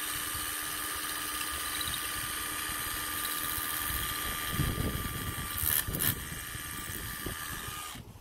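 Cordless SDS hammer drill boring a 6 mm hole into concrete ground, its motor running with a steady whine. It turns rougher and louder twice around the middle and stops near the end.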